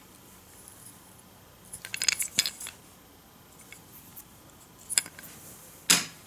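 Light clicks and clatters of a painted wooden toy train engine being handled and turned over in the hand: a quick run of small knocks about two seconds in, then single sharp clicks near the end, the last one the loudest.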